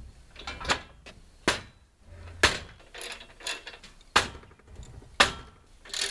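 Sharp, irregular knocks and clanks of the Norwood sawmill's steel front horizontal tube being set into its sawhead brackets, about six in all.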